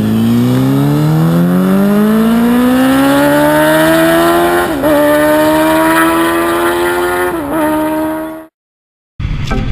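Engine accelerating as an intro sound effect: its pitch climbs steadily for about four seconds and then holds high, with two brief dips, before cutting off suddenly. A short silence follows, then another sound begins.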